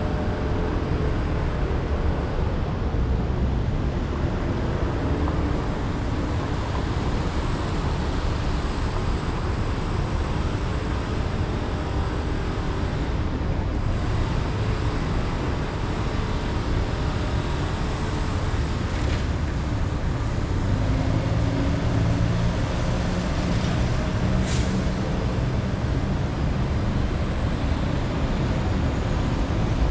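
Street traffic heard from a moving bicycle: motor vehicle engines running close by over a steady rush of road and wind noise.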